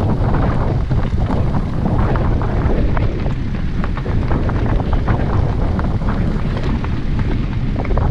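Heavy wind buffeting on the microphone, a loud steady rumble with crackle, over the noise of a moving vehicle.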